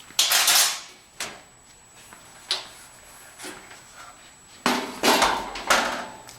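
Metal clatter and knocks from a Speed Queen washer-extractor's opened lid and its inside parts being handled. A clatter at the start, a knock about a second in, a few lighter knocks, then a longer run of clatter near the end.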